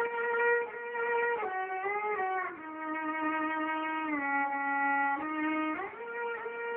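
Solo violin playing a slow melody of long bowed notes that step down in pitch with slides between them, then glide back up to the opening note near the end.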